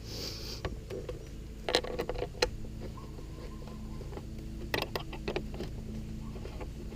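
Scattered sharp clicks and taps from plastic parts being handled and fitted, in two short groups about two seconds and five seconds in, over a low steady hum.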